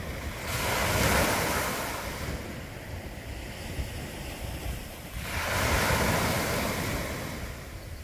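Small sea waves breaking and washing up a sandy beach: two surges of surf about four and a half seconds apart, each swelling and fading over about two seconds.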